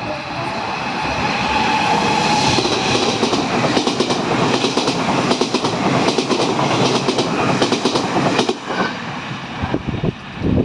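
A train passing close by, its wheels clacking rapidly over the rail joints over a steady rumble, with a faint whine on top. The clacks thin out and the sound falls away near the end.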